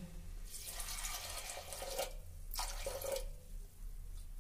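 Water poured from a vessel into a pressure cooker onto soaked arhar dal, in two pours: a longer one of about a second and a half, then a short one about two and a half seconds in.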